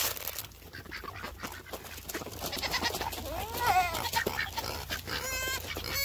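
Goats bleating in the background, a wavering call about three and a half seconds in and a shorter one near the end, over the soft clicking of Pekin ducks pecking and dabbling at feed in a tray.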